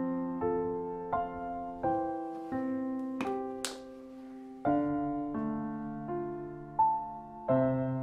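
Soft solo piano music, a slow run of single notes. Two short hissy sounds come about three seconds in.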